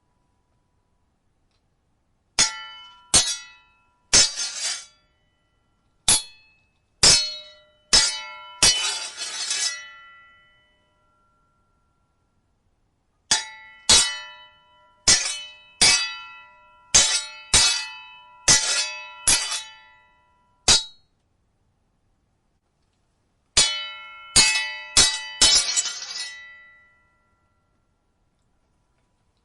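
Sword blades clashing: sharp, ringing metallic clangs in three flurries, several ending in a longer grinding scrape of blade along blade, with silent pauses between the flurries.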